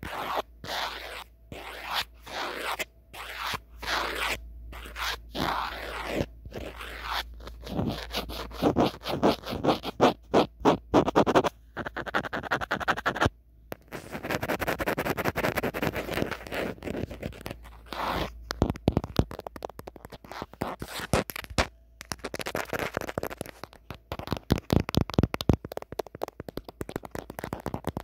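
Natural fingernails scratching and tapping on the back of an old mobile phone, close to the microphone. The scratching comes in runs of quick strokes, broken by bursts of rapid taps.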